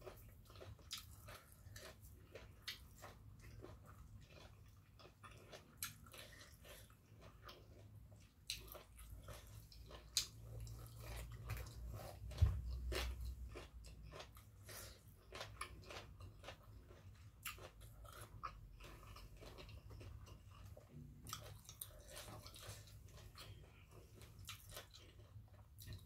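A person chewing a mouthful of food with closed lips, giving irregular crunching and wet mouth clicks. About halfway through there is one louder low thump.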